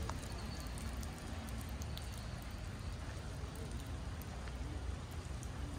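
Light rain falling, with scattered drops ticking over a steady low rumble.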